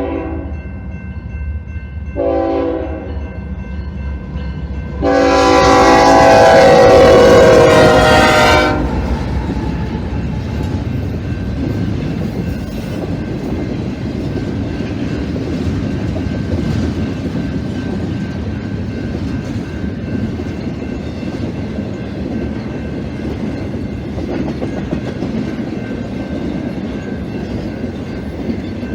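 Horn of a BNSF GE ES44C4-led intermodal train: the tail of one blast, a short blast about two seconds in, then a long, loud blast whose pitch drops near its end as the locomotives pass. After it, the steady rumble and clickety-clack of the locomotives and intermodal cars rolling by.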